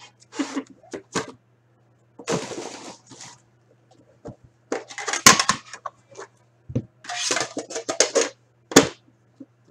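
A metal tin box of hockey cards being handled: slid against its cardboard sleeve with a long scrape about two seconds in, then bursts of rustling, clicks and light knocks as the tin is tilted and its lid opened.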